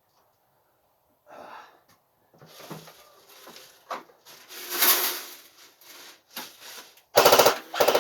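Airsoft electric gun firing a short full-auto burst of about two thirds of a second near the end, after a few seconds of scattered quieter noises.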